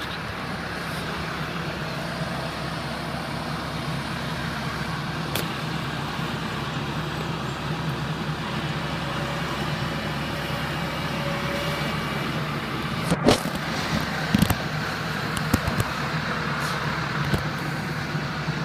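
Farm tractor engine running steadily, with a few sharp knocks and clatters about two-thirds of the way through.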